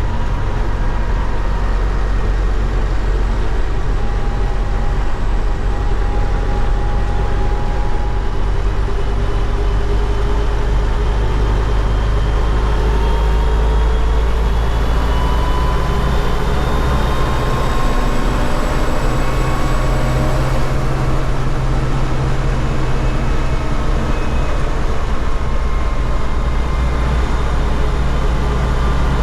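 MTZ-80 tractor's D-243 four-cylinder diesel running hard while driving, its pitch climbing slowly through the middle as it pulls.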